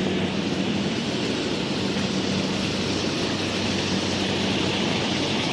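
Rice harvester running steadily: an even engine hum under a wide, constant mechanical rush.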